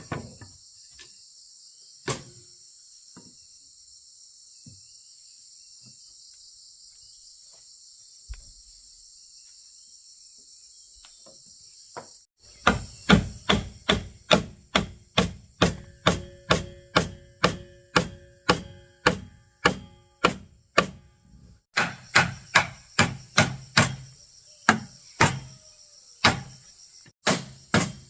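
A steady high drone of insects, with one knock about two seconds in; then from about halfway, steady hammering on wood at roughly two blows a second, some blows ringing.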